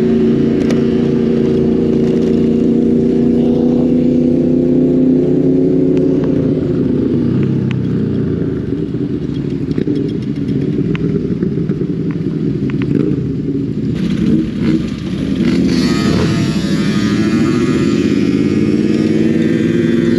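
Motorcycle engines running close by. An engine note holds steady at first, turns rougher and less distinct in the middle, then comes back and rises in pitch near the end as a bike accelerates.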